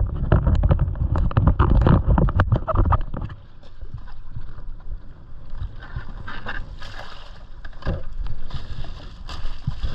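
Rustling and knocking as a fish and ice are packed into a fish bag on a drifting jet ski, loudest in the first three seconds and then sparse, over water sloshing at the hull.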